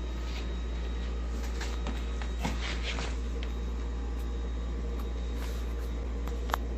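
Lucid L100 adjustable bed base's electric motor running steadily as it raises the foot (leg) section: an even hum, with a few faint clicks and creaks from the frame.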